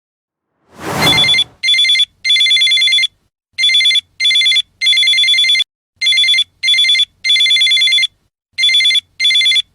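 A short whoosh about a second in, then a telephone ringing: a rapid, trilling ring in repeated bursts, grouped two or three at a time with short pauses between the groups.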